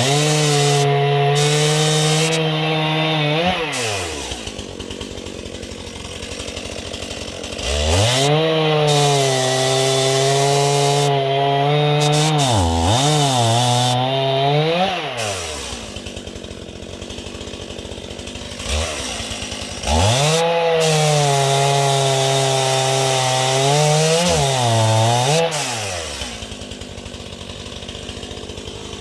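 Stihl MS 271 Farm Boss two-stroke chainsaw bucking dead ash logs: three long full-throttle cuts, the saw dropping back to idle between them. There is a brief dip and recovery in revs near the end of the second and third cuts.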